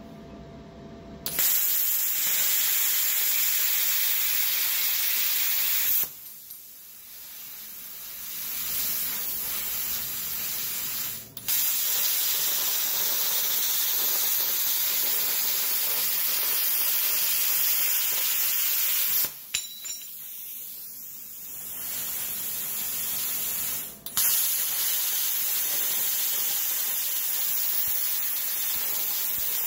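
PrimeWeld Cut60 plasma cutter at 60 amps cutting rusty steel plate: a loud, steady hiss of the arc and air jet. It stops twice for a few seconds, leaving a softer hiss of air, then starts again.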